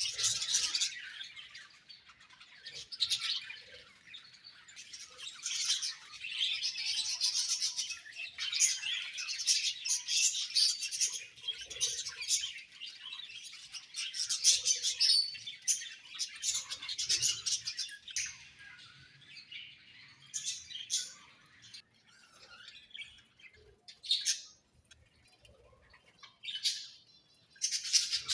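Budgerigars chattering and chirping in a cage, a busy run of warbling chirps that thins to scattered calls with short pauses in the later part.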